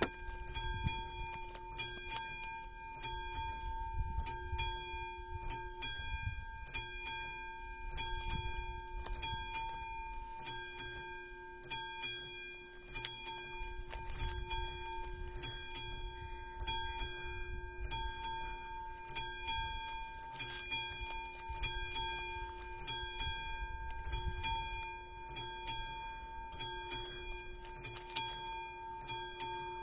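AŽD 71 level-crossing warning signal's classic bell ringing: the bell is struck over and over at an even beat, and its tone rings on between strokes. The crossing is warning of an approaching train. A low rumble lies underneath.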